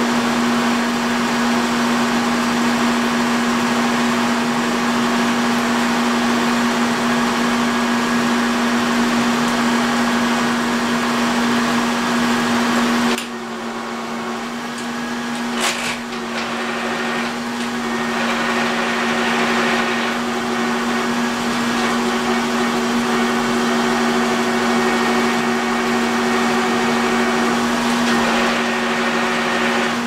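Milling machine's electric motor humming steadily with a strong low tone. About 13 seconds in the wider running noise drops off abruptly, a click follows a couple of seconds later, and the noise builds back up over the next few seconds.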